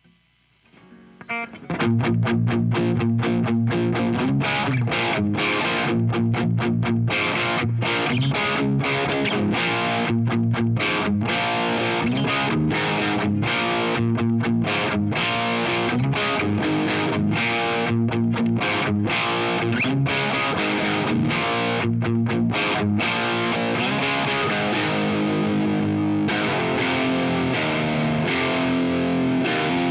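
Electric guitar overdriven by an MXR Duke of Tone pedal into a Laney Lionheart Loudpedal, recorded direct with a Vintage 30 cabinet simulation. After a moment of quiet and a few picked notes, it plays a driven riff with many short rhythmic stops, changing to held chords near the end.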